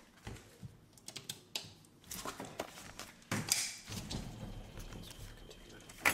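Handheld camcorder handling noise: irregular light clicks and taps, with a few short brushing rustles about two, three and four seconds in.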